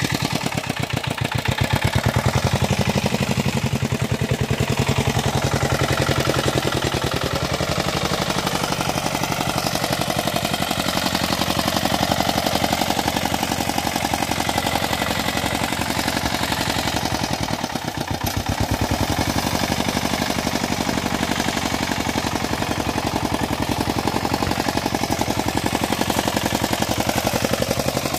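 Small engine of a two-wheel walk-behind hand tractor running steadily with a rapid, even beat. It dips briefly about two-thirds of the way through.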